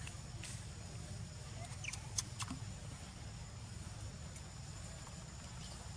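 Outdoor ambience: a steady low rumble and a faint steady high tone, with a few brief clicks and one short, high, falling squeak about two seconds in.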